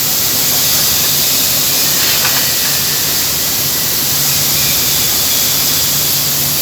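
Steady, loud hiss from a CNC cutting machine's torch cutting steel plate, with a faint low hum underneath.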